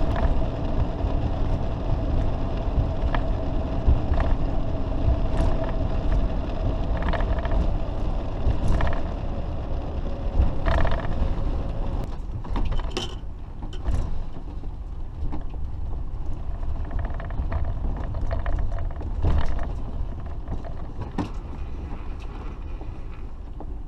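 Diesel motorhome driving along a road, with a steady low engine and road rumble and a steady whine that fades out about halfway through. Scattered short clicks and rattles sound throughout.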